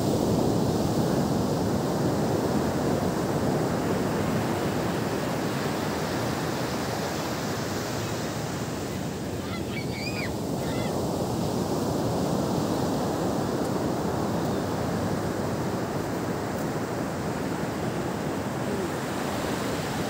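Ocean surf breaking and washing up a sandy beach: a steady rushing of waves.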